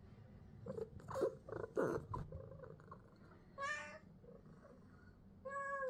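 Domestic cat purring close to the microphone, with a few short sounds about a second in, then two short meows: one about three and a half seconds in, and a steadier one starting near the end.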